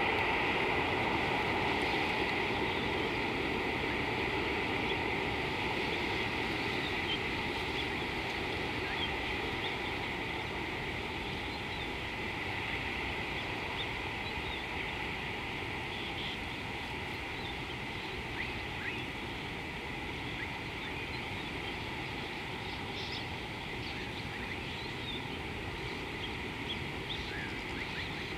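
Steady outdoor background hiss by a river, with faint, scattered short bird chirps from about a third of the way in.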